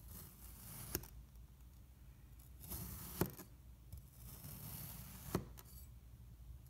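A santoku knife slicing through a block of kinetic sand three times: each stroke is a grainy, crunchy hiss that ends in a sharp tap as the blade hits the plastic cutting board.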